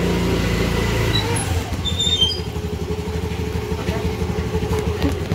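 Small motor scooter engine idling steadily, its note settling into an even pulse about a second in.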